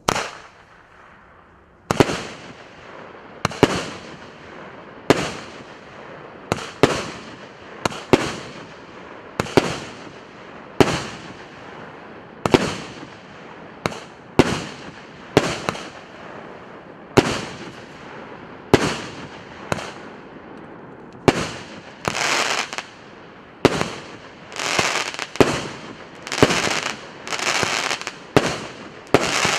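A 36-shot, 1.2-inch firework cake fires its comets one after another, a sharp bang about every second and a half, each followed by a fading hiss. In the last third each shot is followed by a longer, denser crackle from the crackling-sphere bursts.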